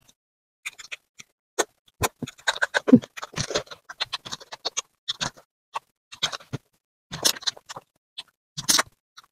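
Close-miked eating: irregular wet smacks and clicks of chewing a mouthful of fried fish, mixed with the crackle of the fried fish being pulled apart by hand.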